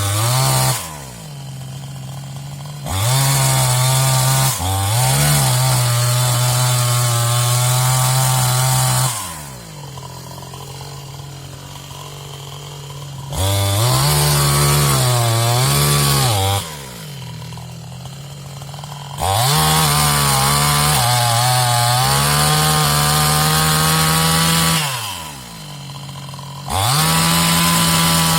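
New West 628 two-stroke chainsaw run up to full throttle again and again, several seconds at a time, dropping back to idle in between. Within the full-throttle stretches the engine speed sags and recovers as the chain bites into the wood.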